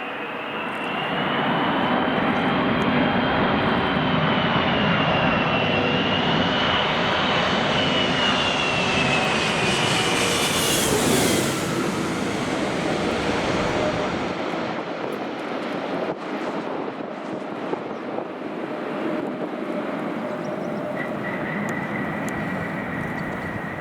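Airliner passing close by, its engines running with a high wavering whine over a wide rush. The whine drops in pitch about eleven seconds in as the aircraft goes past, and the sound then slowly fades.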